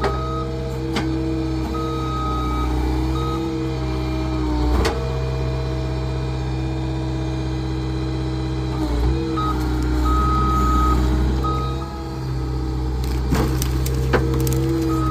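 Engine-driven hydraulic splitter running steadily while it splits a pine stump. Its engine note dips briefly under load a few times, with a high beeping tone coming and going and a few sharp cracks.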